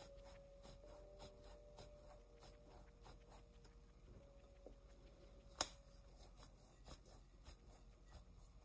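Cold butter being grated on a metal hand grater over a bowl of flour: faint, repeated scraping strokes, with one sharp tap about five and a half seconds in. The butter is being rubbed into the flour to make a crumb for shortcrust dough.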